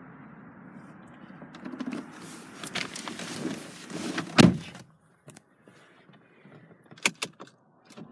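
A car door shutting with a solid thunk about four and a half seconds in, after some rustling and shuffling as someone settles into the seat; the outside noise cuts off at once as the door closes, leaving a hushed cabin with a few light clicks.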